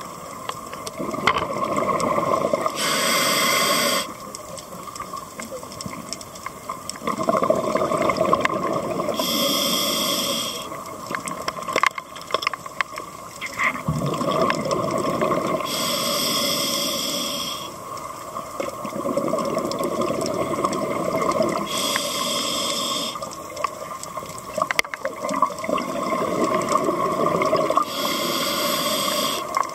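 Scuba diver breathing through a regulator underwater: five short hissing inhalations about six seconds apart, each followed by a longer gurgling rush of exhaled bubbles.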